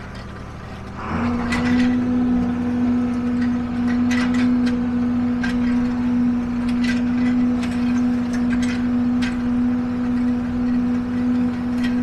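John Deere 4440 tractor's six-cylinder diesel running steadily under load, heard from inside the cab while it pulls a rotary hay tedder. A strong steady hum comes up about a second in and holds, with scattered light clicks and rattles.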